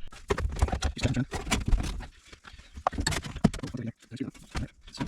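Irregular knocks and clatters of a sheet-metal floor patch being handled, bent and shaped by hand, with brief pauses in between.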